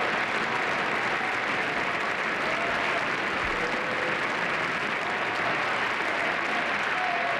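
Large crowd applauding, a steady, dense clatter of many hands clapping together with no break.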